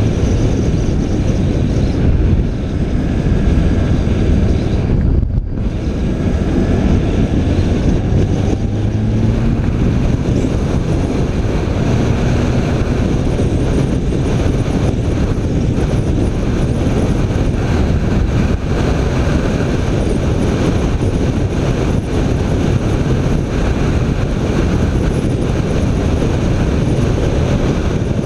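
BMW K1300 R's inline four-cylinder engine running under way with wind rushing over the microphone. Its note dips sharply for a moment about five seconds in.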